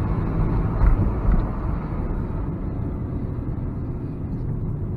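Steady low rumble of road and engine noise inside a moving diesel car's cabin.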